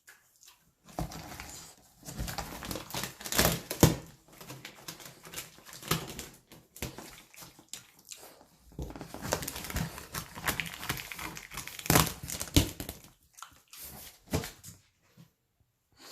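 French bulldog scrabbling at and pushing a large cardboard box: irregular rustling and scraping of cardboard with sharp knocks, the loudest a few seconds in and again near two-thirds of the way, broken by short pauses.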